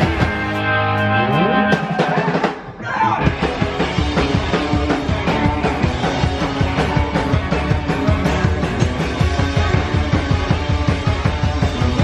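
Psycho-punk band playing loud, fast rock with drums and electric guitar. In the first two seconds the music has sliding pitch glides. It drops out briefly about two and a half seconds in, then the full band comes back with a driving drumbeat.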